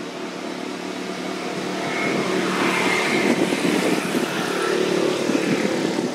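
A motor engine running steadily, growing louder over the first two seconds or so and then holding.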